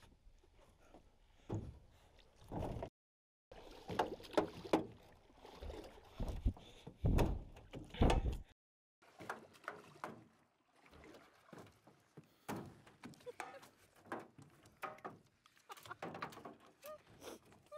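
Scattered knocks, bumps and handling noises in a small flat-bottomed jon boat, as line, gear and a freshly caught catfish bump against the hull and floor. Several louder thumps come in the first half.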